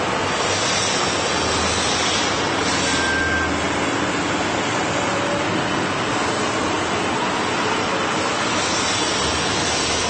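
1000 mm automatic knife grinder running, a steady even noise with a faint low hum underneath.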